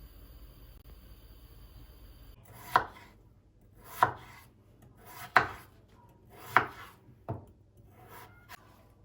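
Knife cutting through a firm vegetable onto a cutting board: five slow, deliberate cuts about a second apart, each a short crunching slice ending in a sharp knock on the board, followed by a couple of lighter taps.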